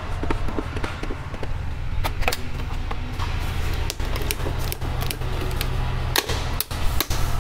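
Sharp, irregular clicks of miniature circuit breakers on a sub-distribution board being switched by hand, with small plastic knocks from the board, over a steady low hum.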